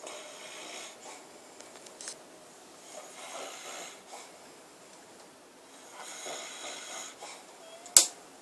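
A man snoring, three snores about three seconds apart, with one sharp click near the end that is the loudest sound.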